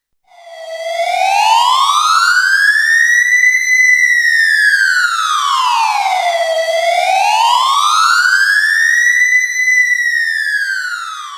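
Emergency alert wailing siren, its pitch sweeping slowly up and down: it starts just after the beginning, rises and falls twice at about six seconds a cycle, and is fading out at the end.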